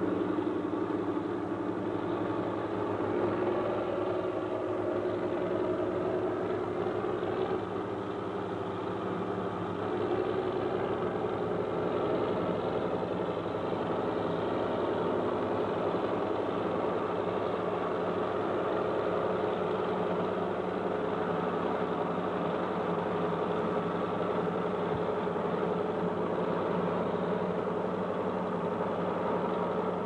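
Crawler bulldozer engine running steadily, a dull muffled drone with no highs, as on an old film soundtrack.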